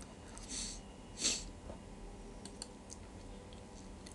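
A person's breath, two short hissy breaths close to the microphone about half a second and a second and a quarter in, with a few faint mouse clicks after them.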